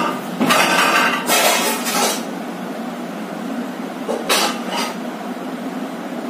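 Iron plate dumbbells set down on a hard floor, clanking and clinking for a couple of seconds, then a shorter clatter about four seconds in, over a steady background hum.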